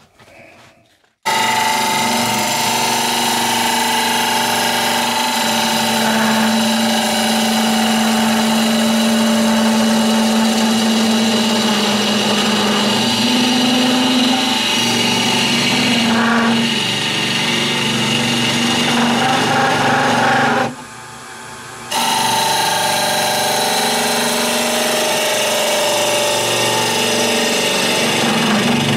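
Wood lathe running with a gouge hollowing the end grain of a spinning wooden blank: a steady motor hum under the scraping of the cut. It starts abruptly about a second in and drops out briefly about two-thirds of the way through.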